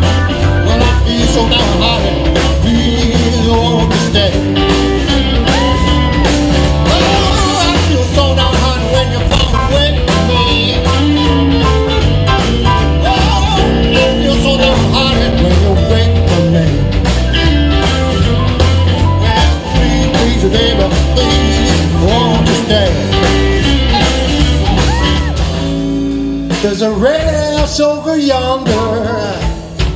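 Live electric blues band playing: electric guitar lead over bass, drums and keyboards. Near the end the drums and bass drop back and a harmonica plays, its notes bending.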